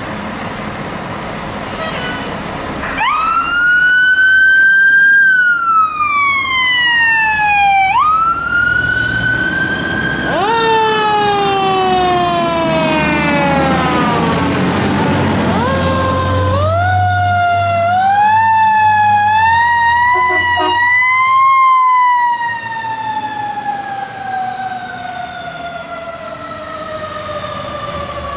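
Fire engine siren winding up quickly and then slowly coasting down, again and again, with a run of short stepped rises in the middle and one long fall near the end. The fire engine's engine is heard under it as the truck passes.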